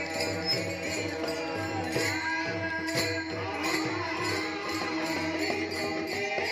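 Varkari devotional bhajan: voices singing over a held steady note, with small brass hand cymbals (taal) struck in a steady rhythm.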